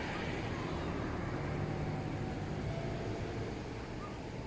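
Steady low rumble of outdoor background noise, with no distinct bangs.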